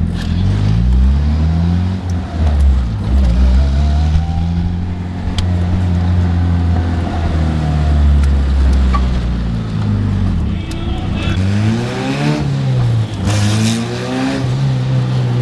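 Honda Civic's B-series engine, loud through a car built with solid motor mounts, running under way with a steady drone at first. From about ten seconds in, the pitch climbs and drops several times as the car accelerates and shifts.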